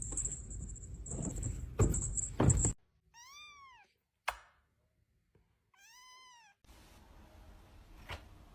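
Cat meowing twice: two short meows, each rising then falling in pitch, about three seconds apart. Before them come a couple of seconds of rumbling noise and knocks.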